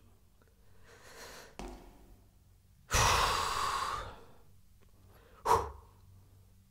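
A man breathing heavily, then letting out a long, loud, voiced sigh of exasperation about three seconds in. A short, sharp exhale follows near the end.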